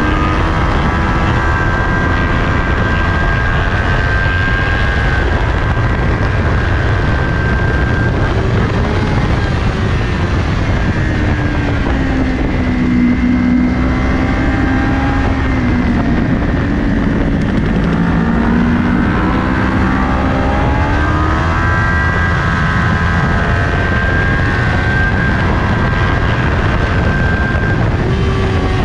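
Kawasaki Ninja 400's parallel-twin engine at racing revs, heard onboard over heavy wind rush. The revs drop through downshifts as the bike slows into a corner about a third of the way in, stay low through the turn, then climb steeply as it accelerates hard out of it past the middle.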